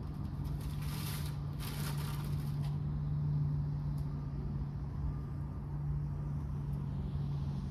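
Steady low hum of a motor vehicle engine running nearby, with a brief crackle of a paper food wrapper about one to two and a half seconds in.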